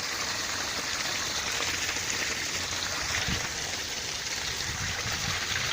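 Water running steadily from a rainwater drain outlet, a small spill falling into the creek.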